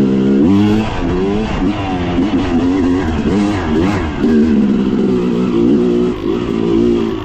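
Dirt bike engine revving up and down as it is ridden along a trail. Its pitch rises and falls with the throttle, with a sudden drop about half a second in.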